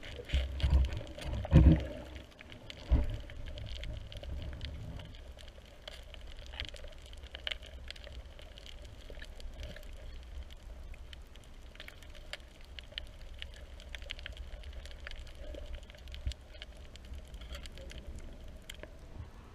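Underwater ambience: water moving around the swimmer, with several heavy low thumps and splashes in the first three seconds, then a steady low rumble scattered with faint crackling clicks.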